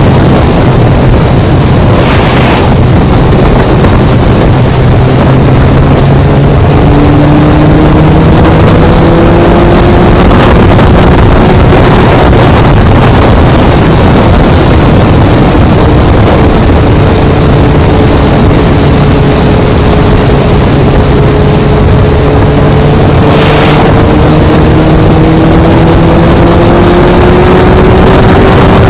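Motorcycle engine running at road speed under heavy wind rush on the microphone. The engine note rises slowly at times as the bike gathers speed.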